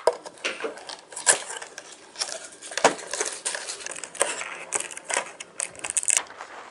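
Cardboard toy box with a clear plastic window being handled and turned over: irregular crinkling and rubbing of the packaging, with sharp taps and knocks.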